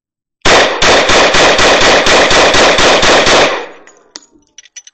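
Glock 21 Gen 3 .45 ACP pistol fired as fast as possible in a magazine dump: about a dozen loud shots in three seconds, roughly four a second, ending with the slide locked back on the empty magazine. Echo dies away after the last shot, and a few faint clicks of the gun being handled follow near the end.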